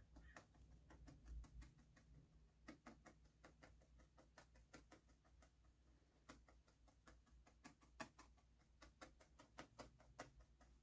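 Faint, irregular clicks, a few a second: a 40-gauge felting needle stabbing orange wool into the back of a wool ear over a felting pad.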